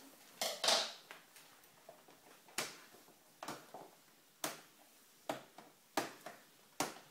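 Present wrapping and packaging being torn and crinkled by hand: a run of about seven short, sharp rips and crackles, the loudest just under a second in.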